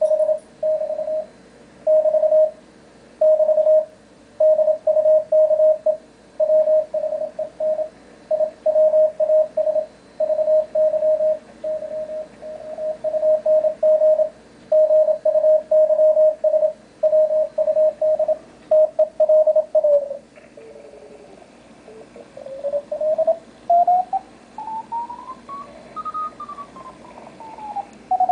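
Morse code (CW) from an amateur radio transceiver, a keyed tone near 650 Hz coming through a plastic-tumbler acoustic-resonance speaker. About twenty seconds in, the code gives way to a softer tone that slides down in pitch, then rises well above the code's pitch and falls back as the receiver is tuned across the signal.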